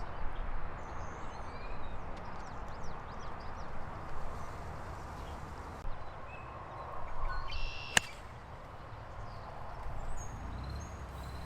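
Outdoor ambience on an open golf course: a steady low rumble with a few faint bird chirps. A single sharp click about eight seconds in stands out as the loudest sound.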